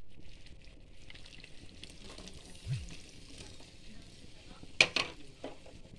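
Corned beef with tomato and onion sizzling as it simmers in a frying pan, a steady hiss. Near the end come a couple of sharp knocks, the loudest sounds.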